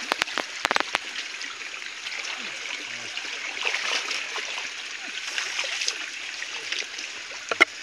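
Water of a shallow stream trickling steadily and stirred by people wading and reaching into it, with a few sharp clicks about a second in and again near the end.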